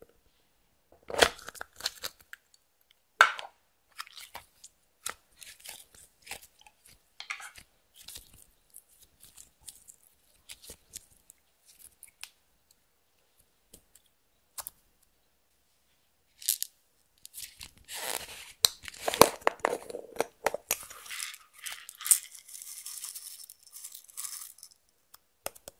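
Clear slime being worked by hand: scattered sticky crackles and pops, a couple of louder snaps early on, then a dense stretch of crackling and squishing over the last third.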